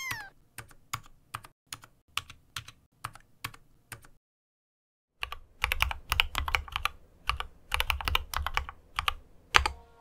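Slow keystrokes on an X-Bows Knight ergonomic mechanical keyboard with Gateron Optical Silent Silver switches, about two or three a second, with a short rising-and-falling chirp at the very start. After a pause of about a second, a faster, heavier run of clacks follows until near the end.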